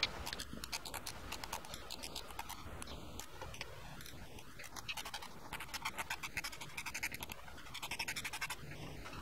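Hose clamp on a motorcycle radiator hose being tightened with a screwdriver: rapid clicking and scraping in several bursts as the screw is turned.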